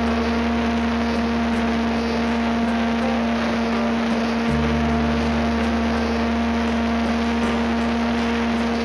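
Onboard audio of a small battery-powered RC airplane in flight: the electric motor and propeller drone at a steady pitch over a constant rush of wind noise.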